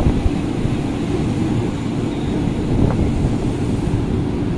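Electric commuter train (KRL) rolling slowly along the platform: a steady low rumble with a faint constant hum, and wind on the microphone.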